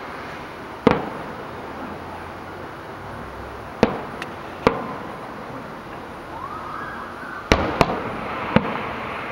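Fireworks shells bursting in a series of sharp bangs, about seven in all: one early, three between about 4 and 5 s, and three in quick succession near the end. They play over a steady city background, with a rising whistle partway through.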